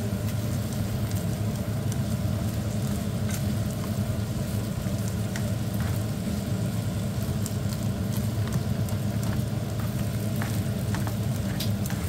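Frozen fried rice with raw egg sizzling in a frying pan while a nylon slotted spatula stirs and scrapes it, giving scattered small clicks, over a steady low hum.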